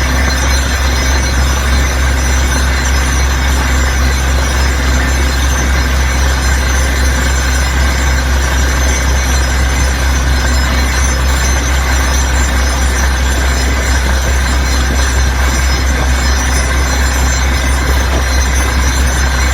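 Small DC motor running steadily with a loud, even hum, the sound of the homemade mini borewell drilling machine's motor.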